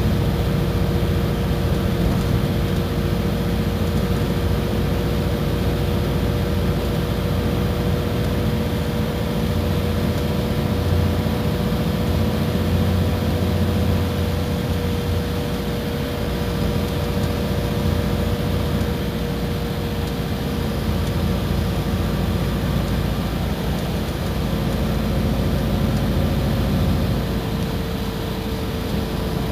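Iveco Crossway bus engine running steadily under way: a low drone with a constant thin whine through it.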